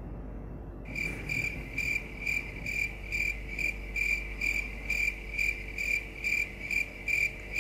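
Cricket-chirp sound effect: a high chirp repeating evenly about twice a second, starting about a second in over faint room tone. It is the stock comic cue for an awkward silence.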